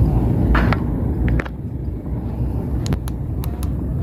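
Wind buffeting the microphone outdoors: a loud, uneven low rumble that eases a little about a third of the way in, with a few light clicks over it.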